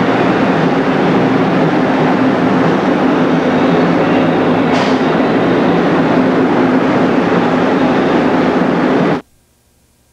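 Loud steady machine noise with a low hum, with a brief hiss about five seconds in; it cuts off suddenly about nine seconds in.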